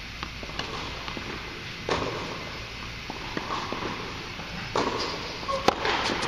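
Tennis ball being hit by rackets and bouncing during a rally on an indoor court, a few sharp knocks each trailing off in echo; the loudest, a forehand hit, comes near the end.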